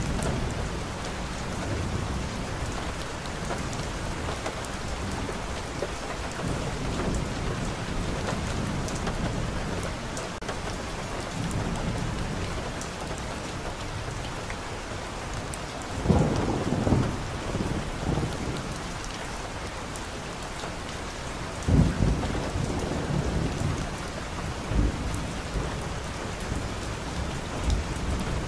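Steady heavy rain pattering on a car's windshield, heard from inside the car, with thunder rumbling low throughout. Two louder thunderclaps come a little past halfway and again about six seconds later.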